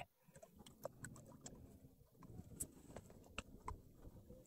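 Near silence, with a scattering of faint small clicks and ticks.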